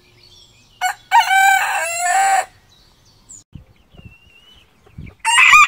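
Rooster crowing: one full crow about a second in, lasting about a second and a half, then a second crow starting near the end.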